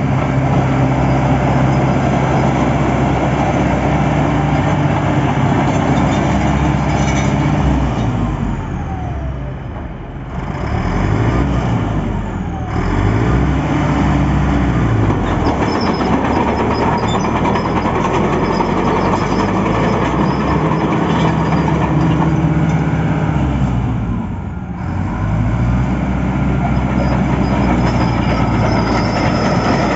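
Caterpillar D5H bulldozer's diesel engine running hard, with its pitch falling and climbing back up about ten seconds in and again near twenty-five seconds, as the engine is throttled down and revved up again.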